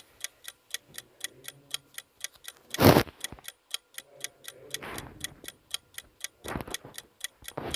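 Clock-ticking countdown timer sound effect, steady sharp ticks at about four a second. A brief, louder rush of noise comes about three seconds in, and fainter ones follow later.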